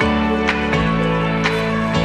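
Background music: a calm instrumental track with a steady beat, its bass note changing about three-quarters of a second in.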